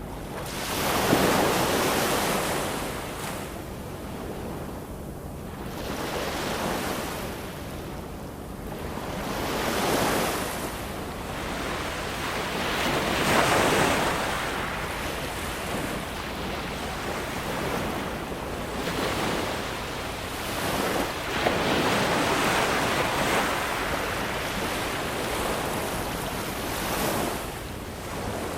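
Ocean surf: waves break and wash in, each surge of rushing water swelling and fading, about six times.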